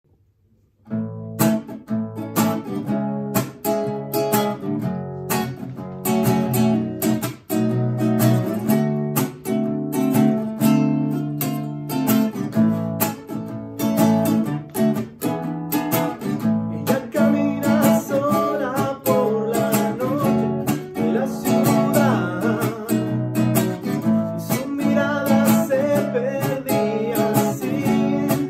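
Nylon-string cutaway classical guitar played, starting about a second in. A man's singing voice joins the guitar about two-thirds of the way through.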